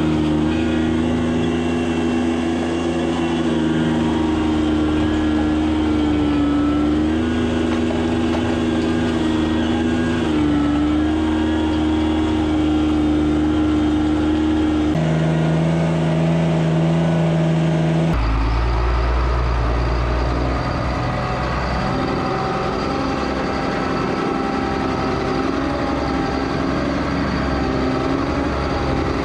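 Diesel engine of a piece of earth-moving equipment running steadily under work, its engine speed dipping and recovering several times. The tone changes abruptly twice, and the last third is deeper, with more low rumble.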